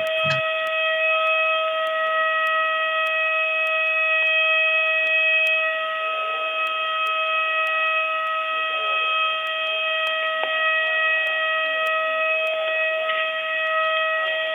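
Planet Fitness lunk alarm howling: a steady, unbroken siren tone that holds one pitch with no rise or fall.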